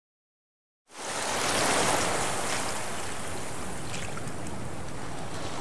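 Dead silence, then about a second in the sound of ocean waves and wind comes in quickly, swells briefly and holds steady as an even rush.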